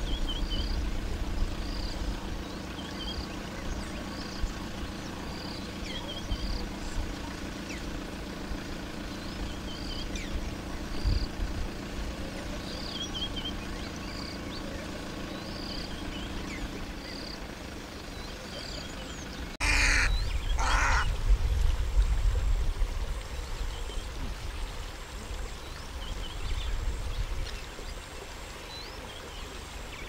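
Birds calling around a river pool: a short high note repeats about once a second through the first half over a low steady drone, then about two-thirds through two loud calls come a second apart.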